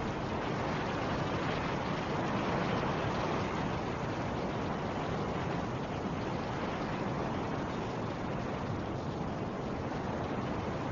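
Snowstorm wind blowing steadily as an even rush of noise, swelling slightly a couple of seconds in.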